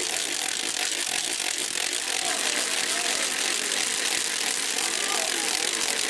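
Several wooden matracas (hand ratchets) being whirled, a dense, continuous rapid clattering, with voices faintly heard underneath.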